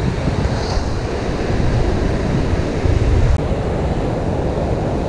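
Steady rush of water pouring through the dam's spillway gates and churning the river, with wind buffeting the microphone.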